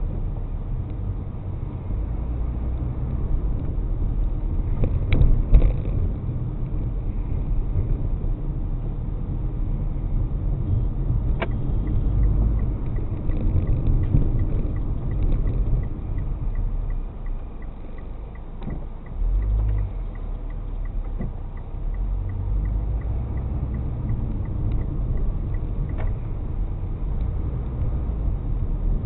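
Car driving, heard from inside the cabin: a steady low road and engine rumble, with a few sharp knocks. From about twelve seconds in, a faint regular ticking runs for about thirteen seconds.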